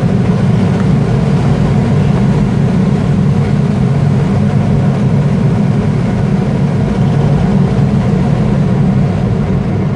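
Loud, steady rush of airflow around an aerobatic glider's cockpit as it dives to build speed for a figure.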